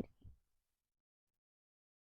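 Near silence: a pause between spoken cues, with the faint tail of the last word fading out at the very start.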